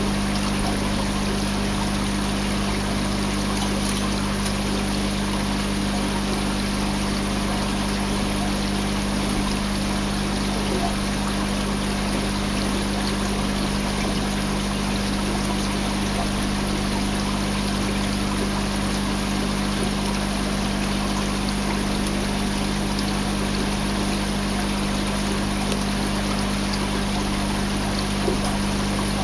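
Aquarium equipment running: a steady rush of moving water with a constant low hum, unchanging throughout.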